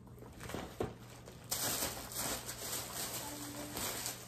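Plastic shopping bag rustling and crinkling as a hand digs through it for the next item, starting about a second and a half in after a couple of light knocks.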